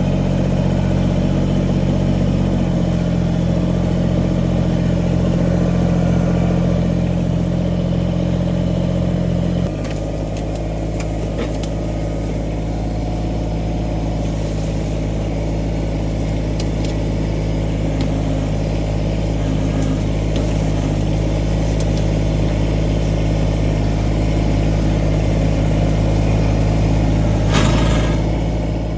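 Kubota 2350 tractor's diesel engine running steadily. Its note changes about three seconds in, then drops and grows a little quieter about ten seconds in. Scattered knocks follow, and a brief clatter comes near the end.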